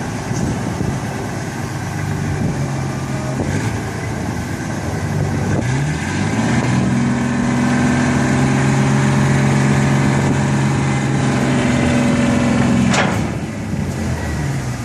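GMC concrete truck engine idling, then revved up about six seconds in and held at a raised speed for several seconds. Near the end it drops back to idle with a short hiss.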